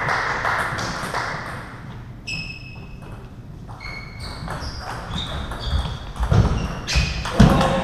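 Table tennis rally: the ball ticking sharply off table and bats, about two hits a second, each with a short ringing ping. A couple of heavy low thumps come near the end.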